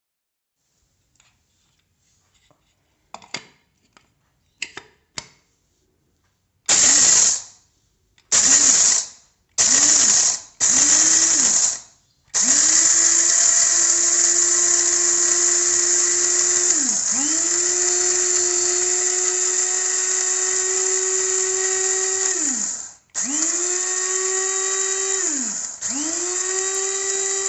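Electric blade coffee grinder with stainless steel blades, its motor run in four short pulses of about a second each, then for about ten seconds with a brief dip in pitch partway through, then in two more runs of a couple of seconds. Its whine rises as it spins up and falls away at each stop. A few light clicks come first.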